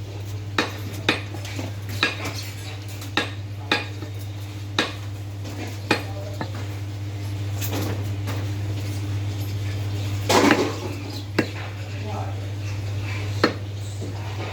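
Butcher's knife or cleaver working meat, giving irregular sharp metallic knocks and clinks, about ten of them, with a louder cluster about ten seconds in, over a steady low hum.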